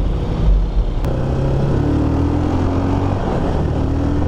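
Motorstar Cafe 400's single-cylinder engine pulling the motorcycle along under way. From about a second in, its pitch creeps slowly upward as the bike gathers speed.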